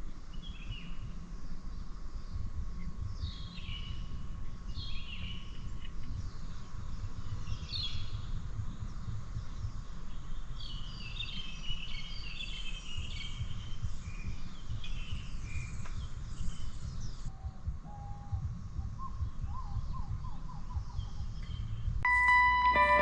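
Small birds chirping and trilling in repeated short phrases, with a denser run of calls about halfway through, over a low steady rumble. Music with clear ringing tones comes in about a second before the end.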